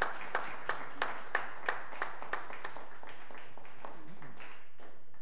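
A small group of people clapping, the claps thinning out and stopping just before the end.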